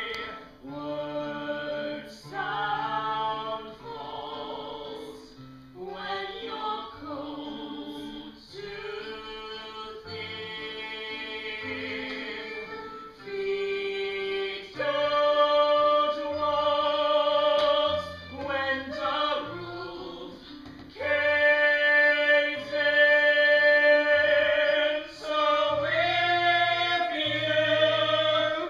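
A solo singer performs a slow show song live with instrumental accompaniment. The notes are long and held, and the song gets louder about halfway through.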